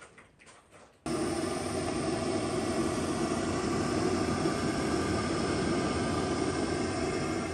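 Canister gas camping stove burner running under a pot of water, a steady rushing noise that cuts in abruptly about a second in.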